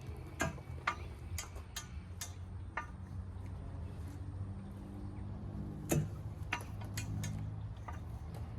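3/4-inch-drive Craftsman ratchet clicking as its handle, lengthened with a cheater pipe, is swung back on a 33 mm lug nut. The clicks come singly and irregularly, with a pause in the middle.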